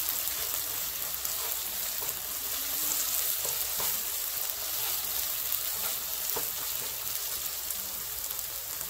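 Chopped onions with tomato paste and spices sizzling in hot oil in a nonstick frying pan, stirred with a wooden spoon, with a few faint scrapes of the spoon against the pan.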